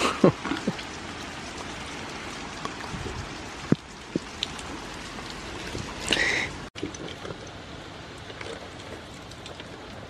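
Steady rain falling, with a few sharp taps and clicks scattered through it.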